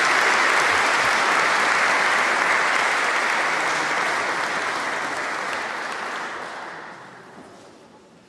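Audience applauding, steady at first and then fading away over the last three seconds.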